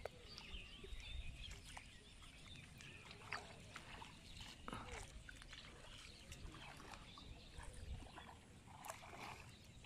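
Quiet open-air ambience, close to silence, with faint scattered animal calls and a few light clicks and splashes.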